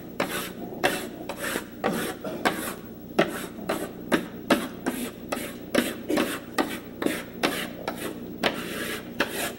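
Chalk scraping on a blackboard in quick, short strokes, about two or three a second, as a row of grass tufts is sketched.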